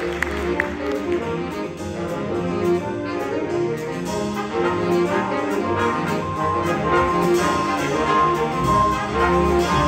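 Jazz big band playing, with the brass (trumpets and trombones) to the fore over saxophones, piano, upright bass and drum kit. From about the middle on, a high note is repeated in short stabs.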